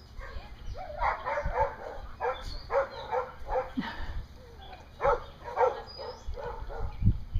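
A dog barking over and over, about two barks a second, with a couple of short pauses. A low thump comes near the end.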